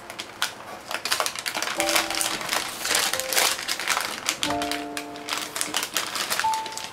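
Newspaper crinkling and crackling in irregular bursts as it is pressed and dabbed onto wet spray paint, over background music with held notes.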